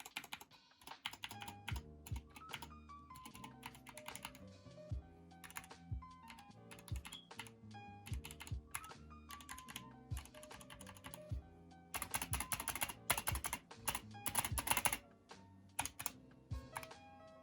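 Typing on a Dierya DK61 Pro 60% mechanical keyboard with optical red switches: a run of quick key clicks, fastest and loudest about two-thirds of the way through, over background music.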